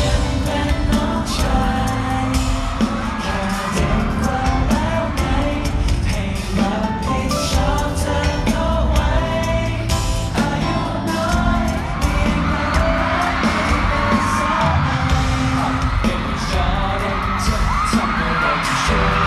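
Live pop song played loud over a concert sound system, with a boy group singing into handheld microphones over the backing track. From about two-thirds of the way in, fans scream and whoop over the music.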